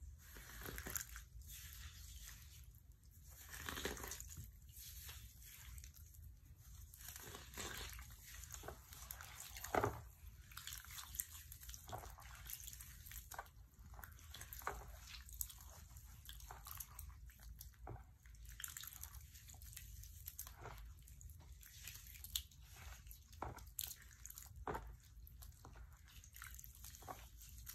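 Soaked oven-baked floral foam being crushed and squeezed by hand in a bowl of liquid: irregular wet crunching and squelching, with a louder squish about ten seconds in.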